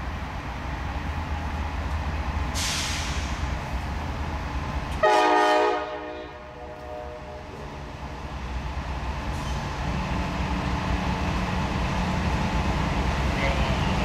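Diesel freight locomotive rumbling as it rolls in slowly, with one short blast of its K5LA five-chime air horn about five seconds in, the loudest sound, fading away over the next two seconds. A brief hiss comes a couple of seconds before the horn, and the engine rumble grows again near the end as the locomotive draws closer.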